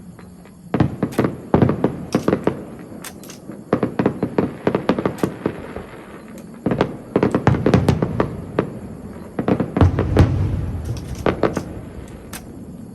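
Fireworks going off in rapid volleys of sharp bangs, about four bursts of a couple of seconds each, with a deeper boom about ten seconds in.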